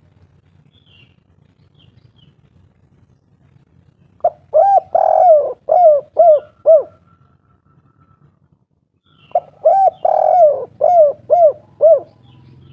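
Spotted dove (tekukur/derkuku) cooing two song phrases. Each phrase has a short opening note and a longer drawn-out coo, then ends in three short clipped 'kuk' notes: the 'kuk 3' pattern keepers prize.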